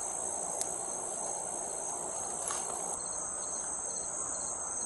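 Steady chorus of night insects such as crickets: a high, continuous trilling with a fainter, quicker pulsing call beneath it.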